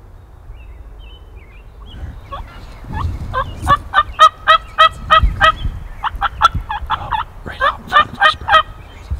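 Turkey calling: three runs of sharp, rapidly repeated notes, about four a second, starting about three seconds in and loud against faint woodland background.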